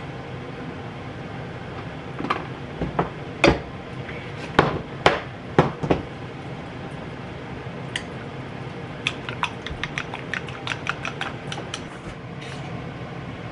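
Kitchen cookware and utensils clattering: a handful of loud knocks of pans and utensils in the first half, then a fast run of lighter clicks, about five a second, over a steady low hum.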